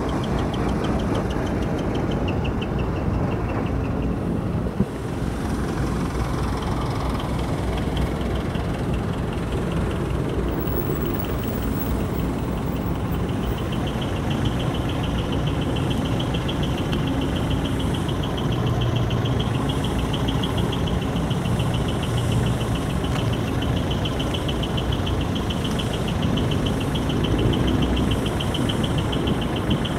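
Steady low engine rumble from the ships and harbour craft, with a fast, even, high-pitched pulsing buzz that drops away early and returns from about halfway on.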